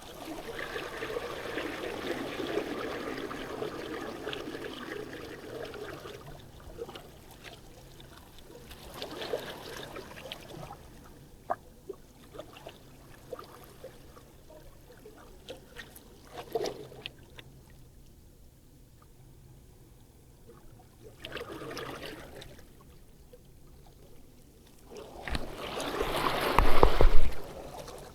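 Water washing and trickling at the shoreline in separate surges, like small waves running in and draining back, with the loudest surge near the end.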